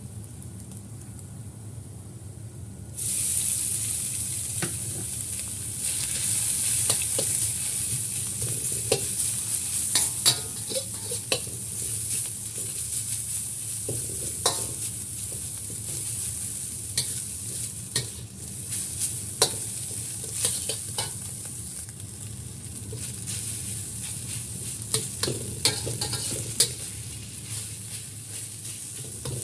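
Food dropped into hot oil about three seconds in, starting a loud sizzle that carries on, with a spatula clacking and scraping against the pan as the food is stirred.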